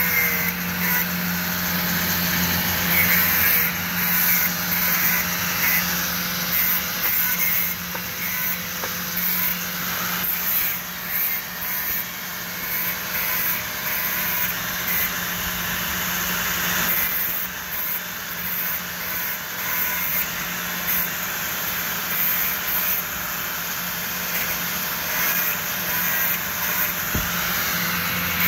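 Handheld angle grinder running continuously with a steady motor whine, its disc grinding against the friction material of car brake pads. The grinding noise swells and eases as the pads are pressed to the disc and moved.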